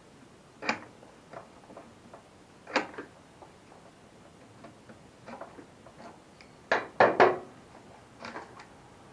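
Scattered clicks and clunks of hand work on lawnmower parts, a few seconds apart, with a loudest cluster of knocks about seven seconds in.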